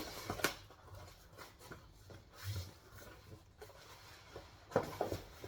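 Cardboard box and packaging being handled and opened: scattered taps, scrapes and rustles, with a short cluster of handling noises near the end.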